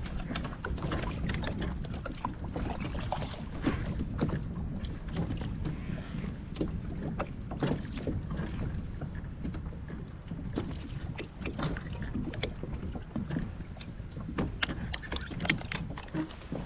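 Wind buffeting the microphone and small waves slapping against a kayak hull, with scattered short clicks and knocks throughout.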